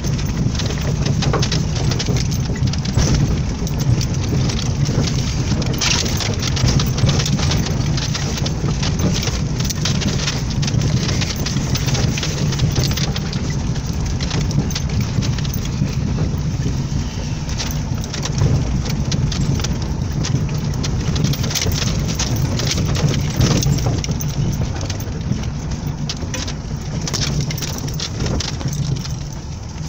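Lada Niva's four-cylinder engine running steadily with a low drone, heard from inside the cabin while driving slowly over a rough, leaf-strewn forest track, under a dense stream of crackles and knocks from the tyres and the rattling body.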